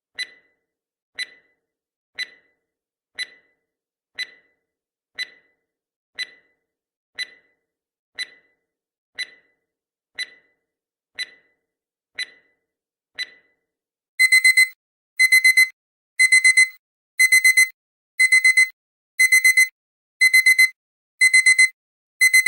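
Timer ticking once a second, then about thirteen and a half seconds in the end-of-countdown alarm starts: a digital alarm-clock beep in quick bursts of four high beeps, repeating about once a second and much louder than the ticks.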